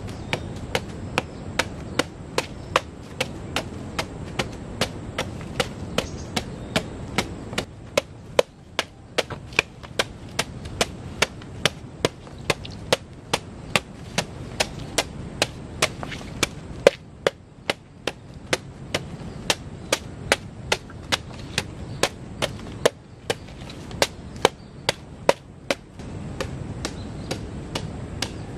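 Curved machete chopping a banana stem against a wooden log, with steady sharp strikes about two to three a second.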